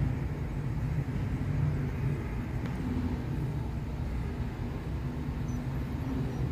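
A running engine: a steady low rumble with a hum that swells and fades.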